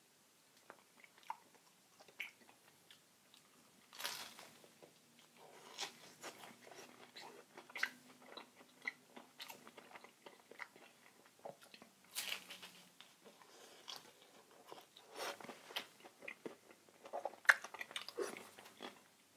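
Biting and chewing a flaky, pan-fried Korean red bean pancake (hotteok): soft chewing with scattered crisp crunches, the louder bites about 4, 12, 15 and 17 seconds in.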